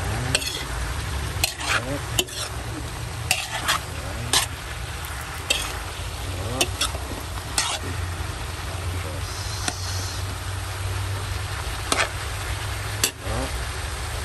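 Pakbet vegetables (squash, eggplant, string beans) and pork sizzling as they are stir-fried in a metal wok. A metal spoon scrapes and clinks against the wok in irregular strokes, with a quieter stretch past the middle.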